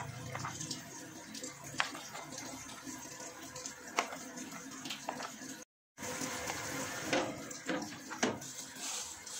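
Plastic kitchenware being handled on a countertop: a few light clicks and knocks as a plastic divider and container are set in place, and a plastic cutting board slides on the counter, over a steady background hiss. The sound drops out completely for a moment just past the middle.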